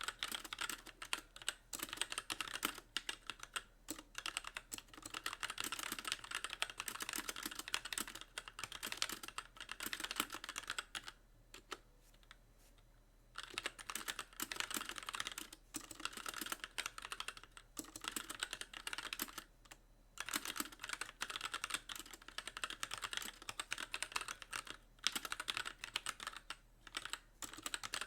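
Typing on a Magicforce mechanical keyboard with light Gateron Clear linear switches and stock keycaps, the keys bottoming out with each press in a fast stream of clacks. The typing pauses for about two seconds midway, then resumes.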